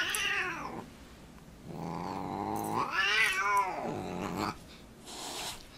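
Siamese cat growling and yowling at a dog: a short yowl at the start, then a longer drawn-out one from about two seconds in that rises and then falls in pitch. It is a defensive warning growl.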